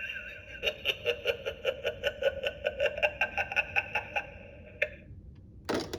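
Gemmy talking haunted rotary phone toy giving a rapid trilling ring, an even run of short pitched pulses about five or six a second that stops after about three and a half seconds. A single clunk follows near the end.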